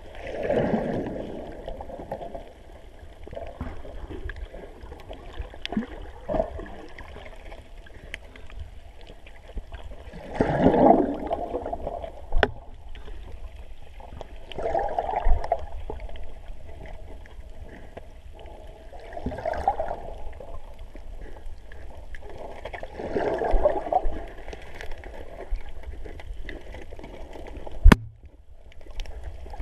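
Muffled underwater sound of water moving around a diver's camera housing: a steady hiss with gurgling swells every few seconds, and one sharp knock near the end.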